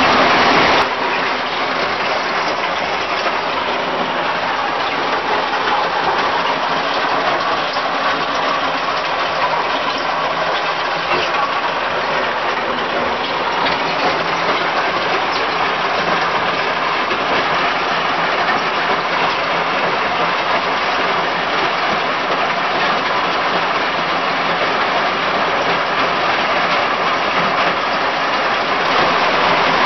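Small cone crusher running, grinding stones with a steady rattling, crunching noise as crushed gravel pours out beneath it, over the steady hum of the engine driving it.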